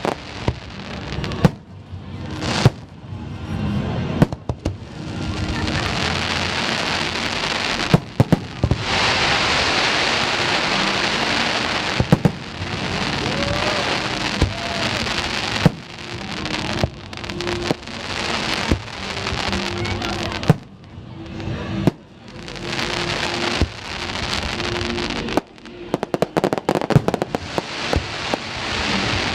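Aerial fireworks shells bursting: sharp bangs at irregular intervals, some in quick runs, between long spells of crackling hiss from the bursting stars.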